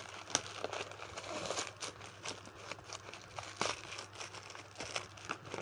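Black plastic parcel wrapping crinkling and rustling as it is pulled and torn open by hand, in a run of irregular crackles.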